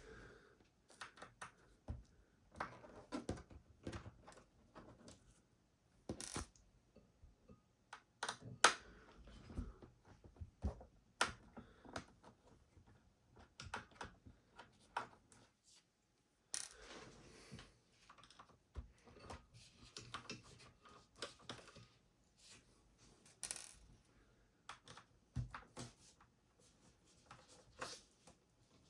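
Irregular light clicks and taps, with a few sharper clinks, as the four screws at the bottom of an all-in-one PC's chassis are worked out.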